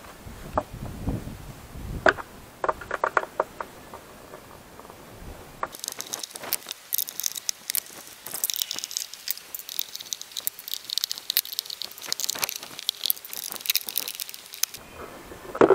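Scattered clicks, taps and knocks of a pool filter pump's plastic housing being handled and unscrewed. About six seconds in, a dense high crackling rustle starts and runs for about nine seconds, then cuts off.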